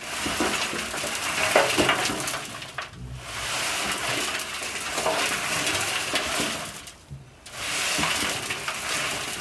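Compost tumbler being turned by hand, its wet contents sliding and crashing around inside the drum in three long rushing spells with short pauses between them.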